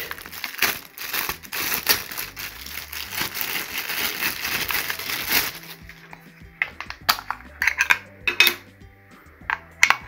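Thin plastic bag crinkling and rustling as it is pulled off a handheld cable tester. About five and a half seconds in the crinkling stops, giving way to scattered sharp clicks and taps of the tester's plastic case being handled as its battery cover is opened.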